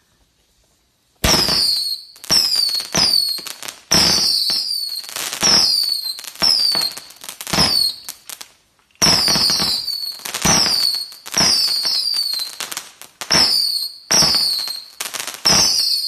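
A 200-shot whistling missile battery firing in rapid volleys, starting about a second in. Each missile gives a shrill whistle that falls in pitch, with a sharp crack and crackle. There is a short pause just past the middle.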